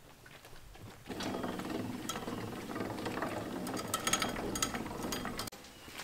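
A machine running with a fast, even mechanical clatter. It starts about a second in and cuts off abruptly near the end.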